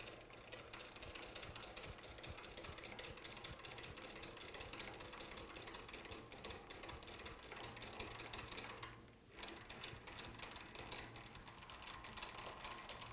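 Lathe cross slide cranked by hand through its travel: faint, steady clicking and rattling from the cross-slide handwheel and leadscrew. There is a brief pause about nine seconds in.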